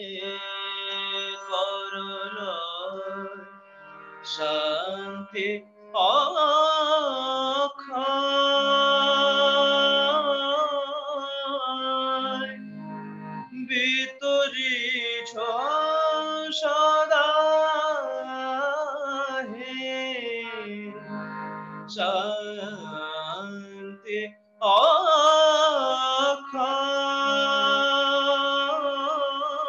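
A man singing a slow devotional song (bhajan), long wavering held notes in phrases with short breaths between, over a steady low sustained accompaniment that keeps sounding in the pauses.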